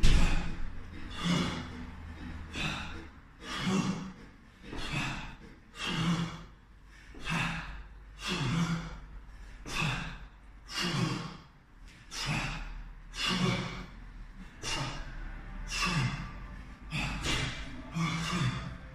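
Heavy, rhythmic breathing from kettlebell lifters straining through continuous jerks, a forceful sighing exhale about every second and a quarter.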